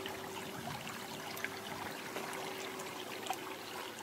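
Shallow channel water trickling and flowing steadily into a plastic-sheet fish trap, with a few faint ticks.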